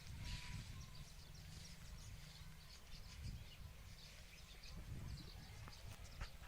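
Faint outdoor farm ambience: scattered faint bird chirps over a steady low rumble of wind on the microphone.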